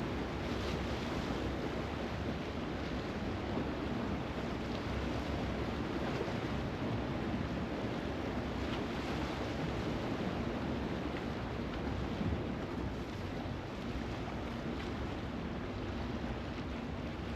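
Sea waves washing against the shore with a steady rush of wind on the microphone.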